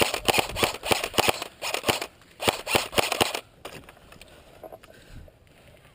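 Airsoft gun firing three rapid bursts of shots close by, each burst a quick string of sharp clicks, over the first three and a half seconds.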